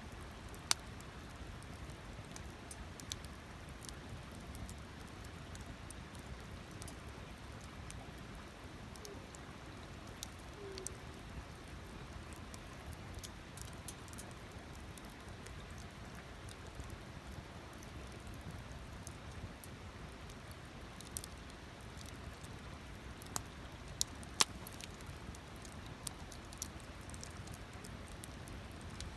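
Wood campfire crackling: scattered sharp pops and snaps over a low, steady rumble.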